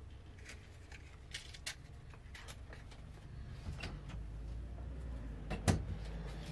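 Light clicks and taps of things being handled, with one louder knock about five and a half seconds in, over a low steady rumble.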